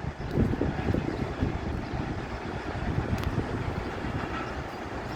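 Pak Business Express passenger train rolling past on the track: a steady rumble of wheels on the rails with irregular knocks, easing slightly toward the end.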